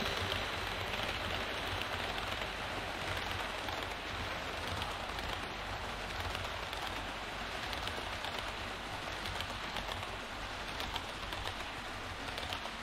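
HO scale model passenger cars rolling past on KATO Unitrack viaduct track: a steady rattling hiss of small wheels on the rails with faint clicks.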